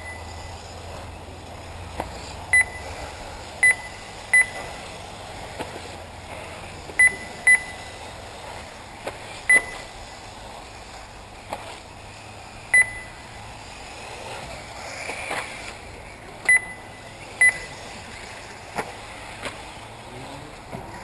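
Short, high electronic beeps, about ten at uneven intervals, from a race lap-timing system sounding as 1/8-scale electric RC buggies cross the timing loop. A steady background noise runs underneath.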